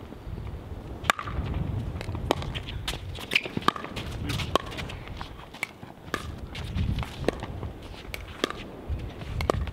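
Pickleball rally: irregular sharp pops of composite paddles striking a plastic pickleball and the ball bouncing on the hard court, roughly one a second, with footsteps on the court in between.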